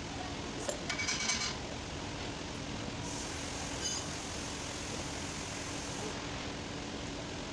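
A short run of clicks and light metallic knocks about a second in, as the Land Cruiser's front wheel hub and its parts are handled, over a steady background hum and hiss.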